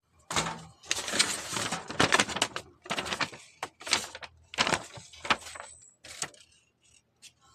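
Clattering and clicking of hard objects being handled: a dense run of knocks and rattles that thins out to a few separate clicks near the end.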